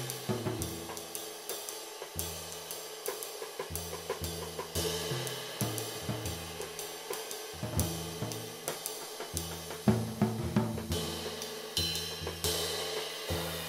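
A 22-inch riveted ride cymbal with one small brass rivet, played in a steady stroke pattern with nylon-tip hickory sticks, its wash ringing on under the strokes. Low drum hits and kit strokes come in between, with one harder accent about ten seconds in.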